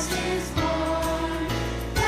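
Live church band music with choir singing, a Christmas song with a steady bass line and drum beats.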